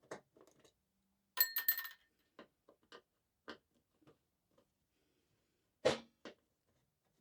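Metal parts and tools clinking and knocking while screws and switches are taken off an electric stove: scattered clicks, a ringing metallic clink about a second and a half in, and a heavier knock near the end.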